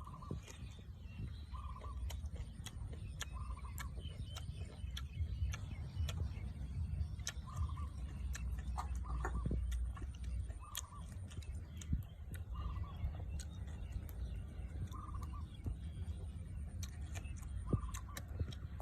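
A short call repeated about every second and a half, over a steady low rumble and scattered sharp clicks.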